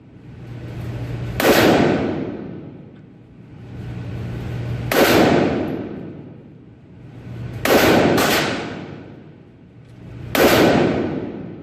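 Steyr AUG A3 rifle firing .223/5.56 rounds, five single shots a few seconds apart, two of them in quick succession about eight seconds in, each followed by a long echo.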